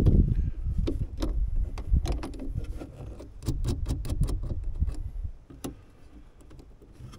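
Small metallic clicks and ticks as fingers work the cable end and metal latch parts of a truck toolbox lid opener, densest about halfway through. A low rumble sits underneath and dies away about five seconds in.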